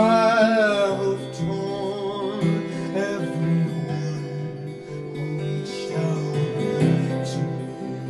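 Live acoustic guitar strummed and picked in a slow chord pattern, accompanying a man's singing voice that holds a wavering note in the first second.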